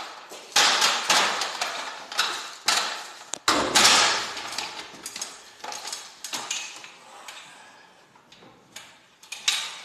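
Irregular metallic clanks and knocks of garage door torsion spring hardware being handled and worked loose, with the loudest clank just before the middle. The knocks grow sparser and fainter toward the end.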